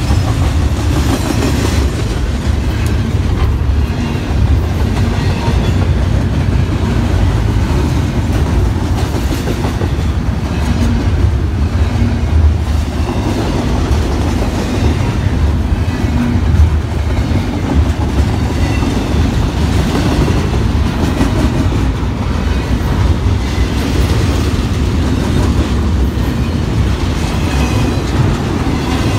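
Double-stack intermodal container train's well cars rolling past close by: a loud, steady rumble of steel wheels on rail.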